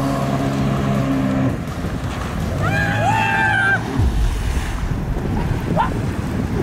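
Jet ski engine running steadily, then a high rising tone held for about a second. At about four seconds a heavy low splash as the jet ski overturns and throws its riders into the water, followed by choppy water and wind noise on the microphone.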